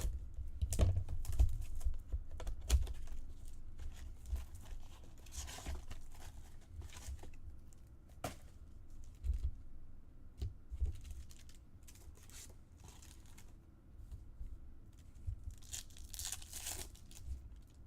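Foil wrappers of baseball card packs being torn open and crinkled, with longer tearing strokes about five and a half seconds in and again near the end. Light knocks and clicks from cards and packaging being handled run between them.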